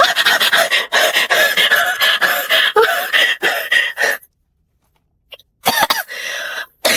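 A woman's rapid, breathy vocal outbursts, cough-like and panting, for about four seconds, then a pause and a few short breaths near the end: her reaction to the electric pulses of a muscle-stimulation pad she is trying for the first time.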